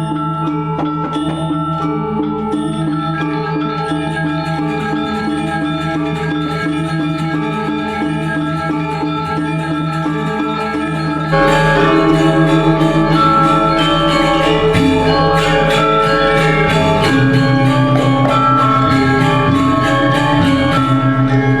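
Background music with mallet-percussion tones. About halfway through it becomes louder and fuller, with a bass line and a busier beat coming in.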